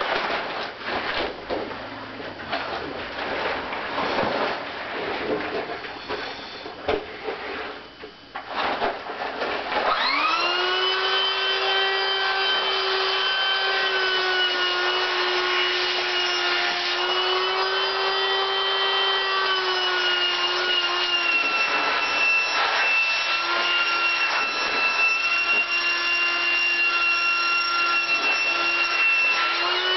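Irregular rubbing and rustling for the first several seconds. About ten seconds in, an electric air pump starts, spins up, and runs as a steady hum with a slightly wavering pitch, inflating a latex inflatable suit.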